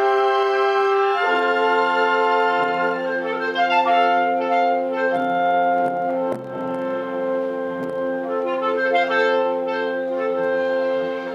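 Orchestra playing classical music live: strings, woodwinds and brass holding full chords that shift every second or two.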